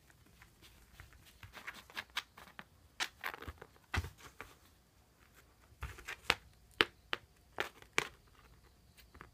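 Paws and claws of a cat and a dog patting and scratching on tatami mats during play with a cat-teaser toy. The taps come irregularly, with a few heavier thumps about four and six seconds in.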